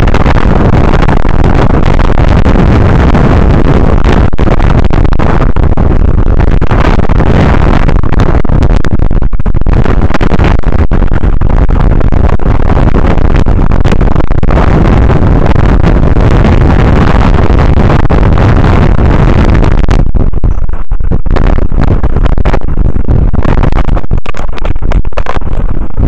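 Strong wind buffeting the microphone: a loud, distorted rumble that runs without let-up, thinning briefly a few times near the end.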